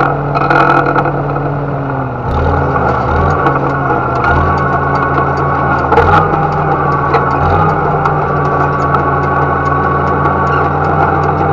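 Farmall H tractor's four-cylinder gasoline engine running steadily while pulling a planter across a field. Its low note wavers a few times in the first half, with faint rapid ticking over it.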